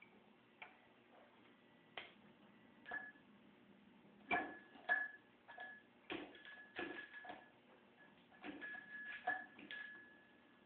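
Metal hand tool clicking and clinking against the engine's bearing retaining plate as its Allen bolts are snugged down. The sharp clicks come irregularly, some in quick clusters, with a brief metallic ring after several.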